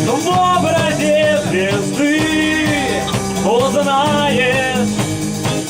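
Amateur rock band rehearsing: a sung melody that slides and bends in pitch over guitar, bass and a steady drum beat.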